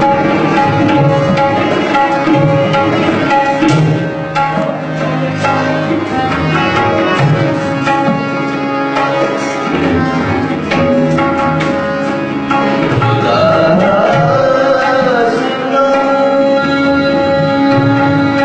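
Tabla playing in a continuous rhythm over a melodic accompaniment of held notes. The melody bends in pitch about two-thirds of the way through.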